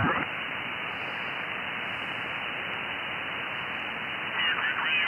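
Receiver hiss from an Icom IC-7610 tuned to lower sideband on the 20-metre amateur band, thin and cut off sharply at the top by the narrow receive filter. A quick rising chirp at the very start as the tuning passes over a signal, and a garbled single-sideband voice comes up near the end.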